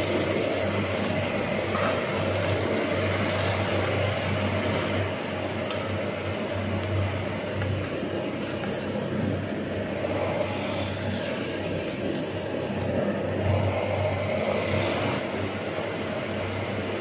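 Pork ribs sizzling as they stir-fry in a wok over a portable gas-canister stove, under the burner's steady running noise, with a few short scrapes of the spatula against the pan.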